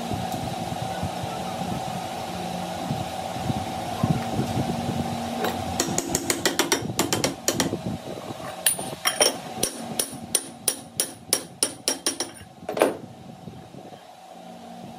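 A workshop machine runs with a steady hum. Partway through, a run of sharp metal-on-metal strikes comes in, about two a second for several seconds, and the last strike is the loudest.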